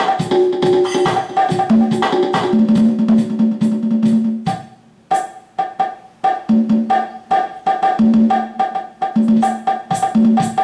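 Electronic drum kit played through its amplifier: fast drum and cymbal strikes with some ringing pitched tones, and a short pause about halfway through before the playing picks up again.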